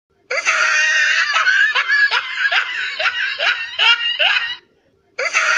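Laughter sound effect: quick, repeated rising bursts of laughing that cut off abruptly about four and a half seconds in, then start over near the end.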